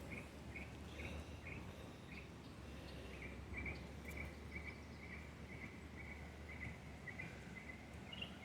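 Rhythmic outdoor chirping: short, high chirps repeating evenly, about three a second, over a faint low hum.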